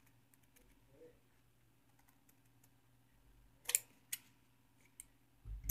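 Scissors snipping a stiff buckram neck piece: faint small clicks, then two sharp snips close together a little past halfway and a lighter one after them. A low thump comes near the end.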